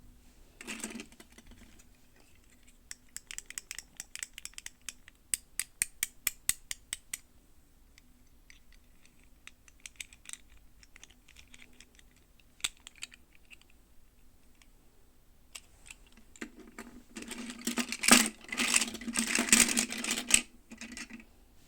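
Hands handling plastic toy packaging and doll parts: a quick run of light clicks and taps, then scattered taps. Near the end comes a louder stretch of rustling and crinkling lasting a few seconds.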